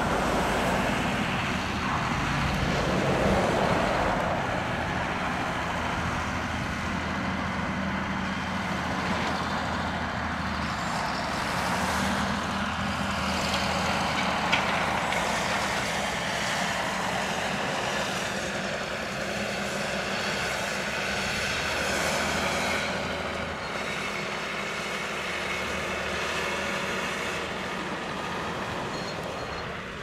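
John Deere tractor's diesel engine running steadily under load, pulling a reversible plough through the soil.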